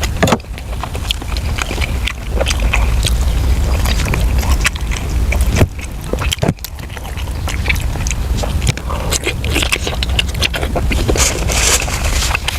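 Close-up eating sounds of soft braised pork intestines: repeated biting, chewing and scraping clicks over a steady low rumble.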